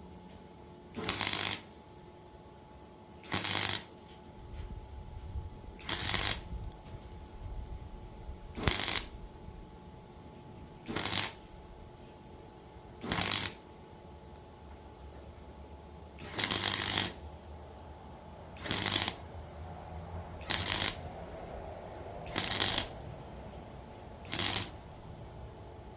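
Gasless flux-core MIG welder laying short tack welds on cracks in the mower's steel body: about eleven bursts of arc noise, each half a second or so, roughly every two seconds, with a faint steady hum between them.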